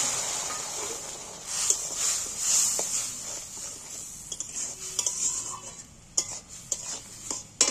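Water poured into hot oil in a wok of frying potatoes hisses and sizzles, the sizzle dying down over the first second or two. A metal spatula then stirs and scrapes around the wok, with a few sharp clinks against the pan near the end.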